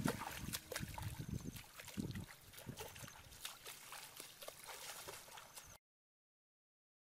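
Footsteps splashing and sloshing through shallow water, with scattered small splashes and drips. The heaviest sloshes come in the first two seconds, and the sound cuts off abruptly into silence shortly before the end.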